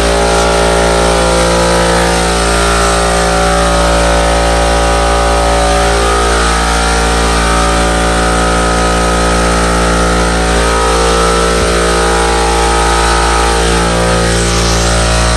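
A motor running steadily, a constant machine drone with a fixed pitch that neither rises nor falls.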